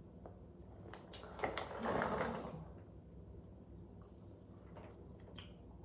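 Packaging being handled: a sharp click, then a short rustle about two seconds in, and a few faint ticks near the end.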